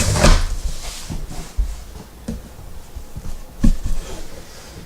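Cardboard packaging being handled and pulled open, with rustling and scraping at the start and a few sharp knocks later on.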